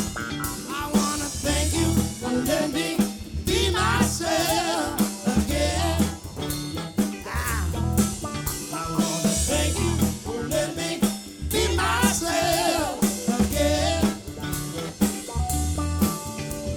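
A live soul band playing: a singer over a drum kit and bass with a steady beat.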